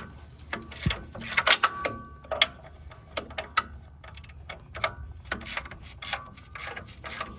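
Wrench cranking the track tensioner on a Vermeer SC48TX stump grinder's rubber track, a run of irregular sharp clicks with a few louder metallic clinks about a second and a half in, as the slack is taken out of the loose track.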